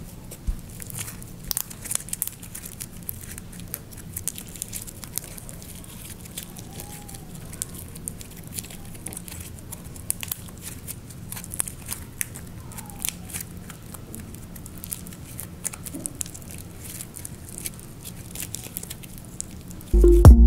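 Red slime made from peel-off lip gloss and contact lens solution being squeezed and kneaded by hand, giving many small sticky clicks and crackling pops. Music with a beat comes in right at the end.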